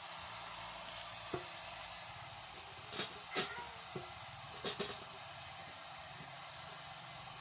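A few sharp knocks and taps on a motorcycle's steel fuel tank as a dent is worked out, irregularly spaced with two quick pairs in the middle, over a steady hiss.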